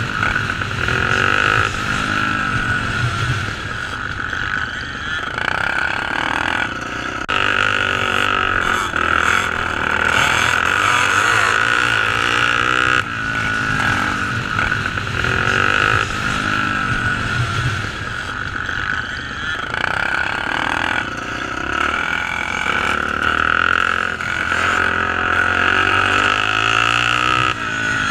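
Off-road racing motorcycles racing, their engines revving up and dropping back again and again as riders work the throttle and shift gears.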